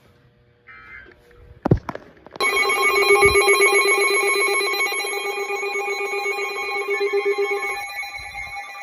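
A weather alert radio's alarm sounding after a sharp click: a loud, rapidly pulsing ring of several tones starts a little over two seconds in and eases off near the end. It signals an incoming warning, here a special marine warning.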